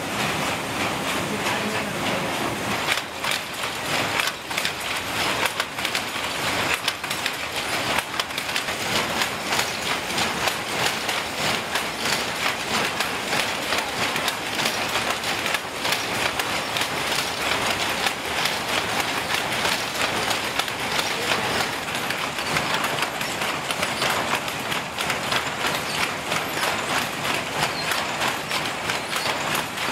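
Shuttle power looms running: a dense, continuous mechanical clatter of rapid clacks and knocks from shuttles and loom mechanisms weaving blanket cloth.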